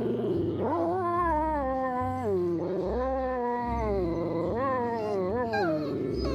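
A dog giving three long, wavering howl-like whines, each lasting a second or more and sliding up and down in pitch.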